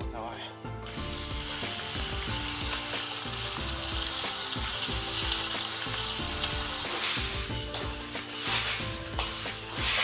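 A twig broom sweeping a dusty concrete floor: a steady scratchy rasp that starts about a second in, with louder strokes in the last few seconds.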